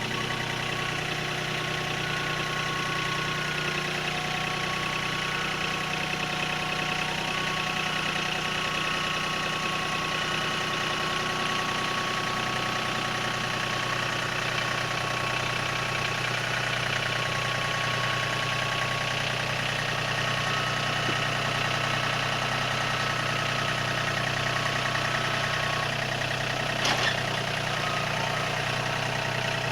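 A steady engine hum like an idling motor, with one sharp click about 27 seconds in.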